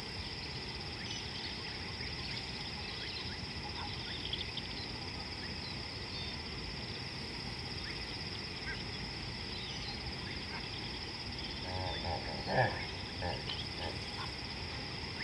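A steady, high-pitched chorus of insects droning without a break, with scattered faint chirps. A short burst of louder calls comes about twelve seconds in.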